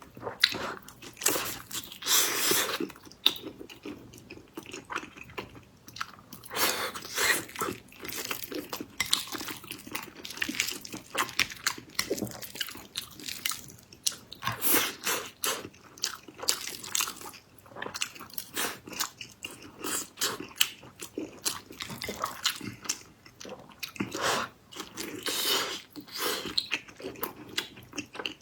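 A person biting and chewing a soft, sticky, sweet food, with irregular wet clicks and mouth sounds.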